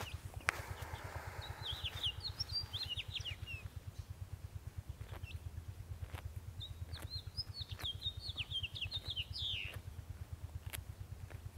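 Small songbirds twittering in two bursts, about a second and a half in and again from about six and a half to ten seconds, over a steady rapid low throb, with a few sharp ticks.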